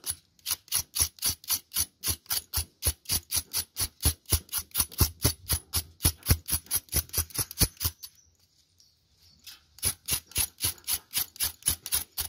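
Knife blade scraping the charred black skin off a roasted yellow yam in quick, even strokes, about four or five a second. The scraping pauses for a second or so about two-thirds of the way through, then resumes.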